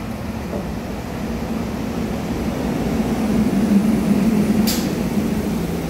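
SEPTA Silverliner IV electric commuter train pulling into a station platform to stop: a steady low hum over a rumble, growing louder as the cars pass close, with a short sharp click near the end.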